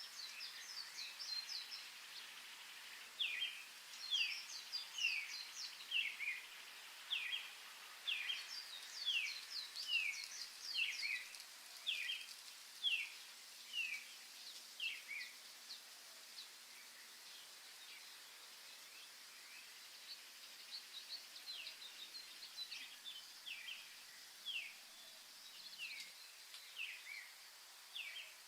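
Birds singing: a run of short, falling chirps about one to two a second, with clusters of quicker, higher twitters, over a faint steady hiss. The chirping goes quiet for a few seconds past the middle, then starts again.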